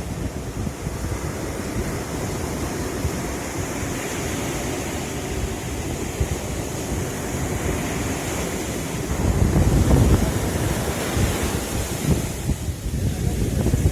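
Sea waves washing on the shore, with wind buffeting the microphone as a low rumble; the surf swells louder for a couple of seconds about two-thirds of the way through.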